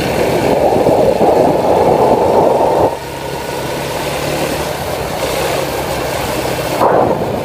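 Quad bike engine running while it is ridden, louder for about the first three seconds and then dropping to a lower steady level.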